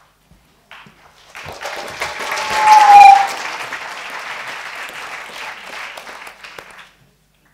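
Audience applauding. The clapping builds over the first couple of seconds, is loudest about three seconds in, where a brief tone rises above it, then carries on more softly and stops shortly before the end.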